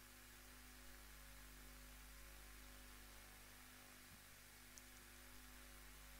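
Near silence: a steady electrical hum with a faint hiss.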